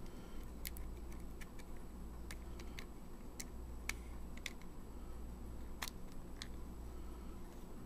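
Irregular small clicks and ticks of a Pentax E50 compact camera's opened metal casing being handled, its parts pressed into place by hand.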